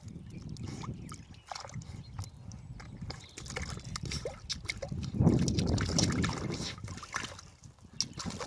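Water sloshing and splashing, with scattered small splashes and drips, as a puppy paws and snaps at a ball floating on the water. It grows loudest for a couple of seconds just past the middle.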